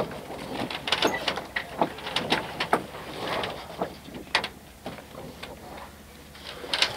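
Irregular knocks, clicks and creaks from a sailboat's fittings and rigging as the becalmed boat rocks, several a second over a low steady background.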